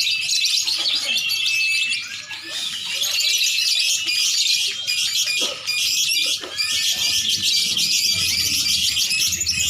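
A chorus of many caged songbirds chattering and singing at once: a dense, continuous mass of high chirps and trills, with a brief lull about two seconds in.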